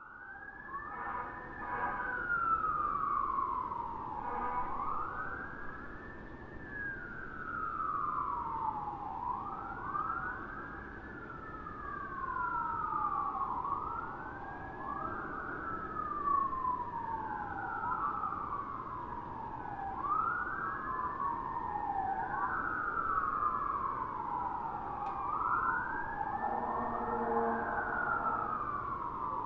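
Distant American fire truck sirens wailing. Two slow wails rise and fall about every four seconds, overlapping out of step. A brief lower steady tone sounds near the start and again near the end.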